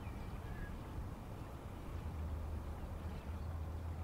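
A steady low hum under a faint hiss: background room tone.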